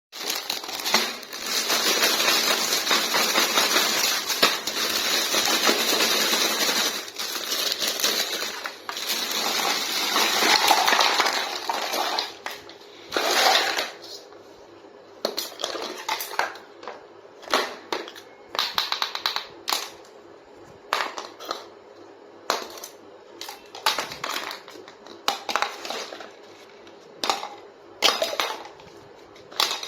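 Unboxing sounds of a toy kitchen set. For about twelve seconds there is dense crackling handling of the packaging. Then come separate light clicks and taps, roughly one a second, as small plastic toy pieces are handled and set down.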